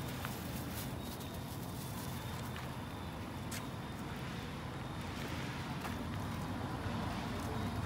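Steady low rumble of wind on the microphone, with a few faint clicks scattered through it.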